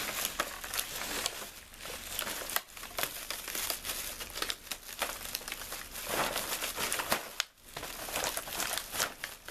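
Plastic packaging crinkling and rustling as it is handled and pulled open by hand, with irregular crackles throughout.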